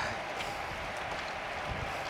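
Steady wind and road noise from riding a road bicycle: wind buffeting the microphone with tyre hum and a few faint ticks.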